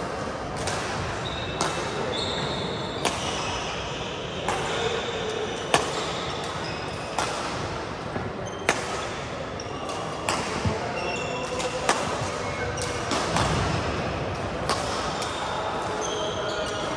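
Badminton rally: sharp racket strikes on the shuttlecock about every second or so, with short high squeaks of court shoes on the floor between them.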